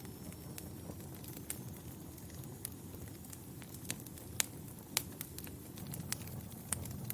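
Wood fire crackling in a fireplace: scattered sharp pops and snaps over a low, steady rumble of the flames, with a few louder pops in the second half.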